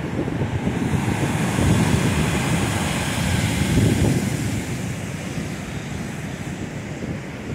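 Wind buffeting the microphone over the wash of breaking ocean surf. The wind rumble swells a second or two in and eases off toward the end.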